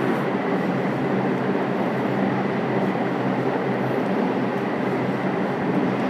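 Steady, unchanging mechanical noise with a low hum running underneath, with no distinct knocks or clicks.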